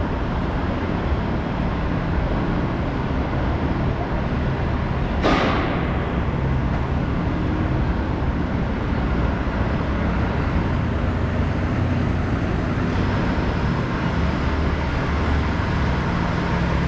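City street traffic: a steady rumble of passing vehicles, with one sharp, brief hiss about five seconds in that falls in pitch and dies away quickly.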